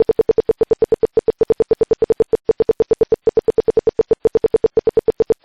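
Security alarm buzzer beeping rapidly: about eight or nine short beeps a second, all on one fixed pitch, cutting off abruptly near the end.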